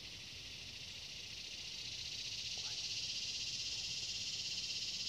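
Steady, high-pitched buzzing chorus of swamp insects, swelling louder about two seconds in.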